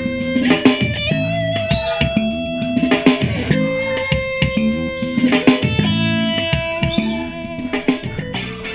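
Guitar-led music with a steady beat played through the Mitsushi Orashare BS02 portable Bluetooth speaker, recorded raw.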